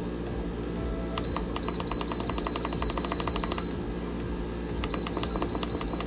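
Background music with a steady low drone and a fast, even ticking beat that drops out for about a second past the middle.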